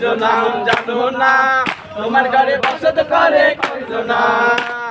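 A group of young men singing a Bengali song together, with a sharp beat about once a second.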